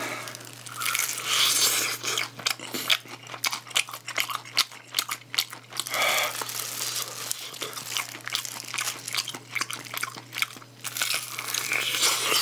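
Close-miked eating of crunchy sauced fried chicken: crisp bites and wet chewing with many small irregular crunches, mixed with the crinkling of disposable plastic food gloves as the pieces are torn and handled.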